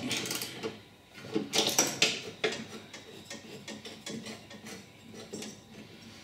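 Metal clicking and rattling from a ride-on mower's cutter-deck belt, pulleys and tension bracket as they are moved by hand. A few louder knocks come in the first two and a half seconds, then lighter ticking.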